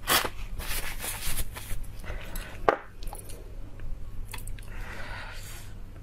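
Crisp lettuce leaf rustling and crinkling as it is handled close to a clip-on microphone, with a few light clicks and taps.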